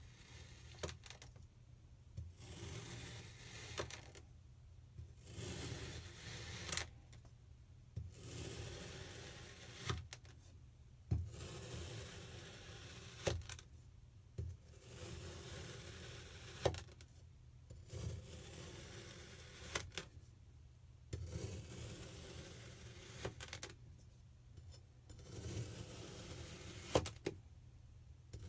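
Kinetic sand being cut with a knife: repeated crunchy, grainy scrapes a second or two long, separated by short pauses, with a few sharp clicks in between.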